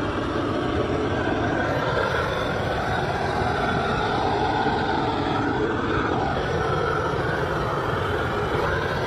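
Hose-fed gas torch burning with a steady roar of flame.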